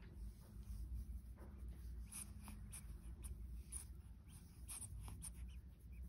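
Faint, irregular scratchy rubbing of fingertips massaging a newborn's hair and scalp.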